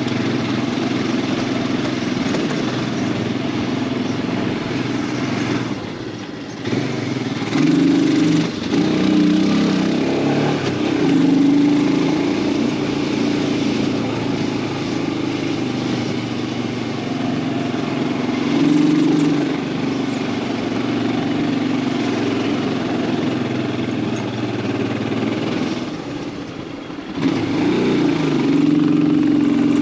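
Royal Enfield Himalayan 411's single-cylinder engine running under way, heard from the rider's seat with wind and road noise. Its note eases off twice, briefly a quarter of the way in and again near the end, and picks straight back up each time.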